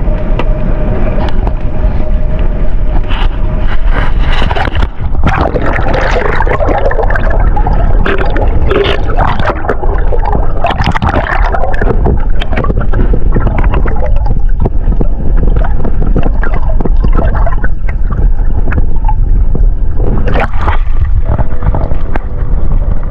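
Loud gurgling, splashing water noise over a constant low rumble.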